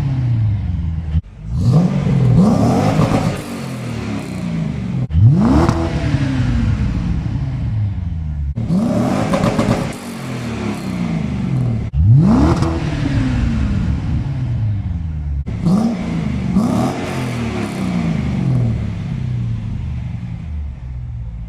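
V8 car exhaust being revved from idle: about five sharp blips of the throttle, each rising quickly in pitch and falling back to idle, in segments that cut off abruptly.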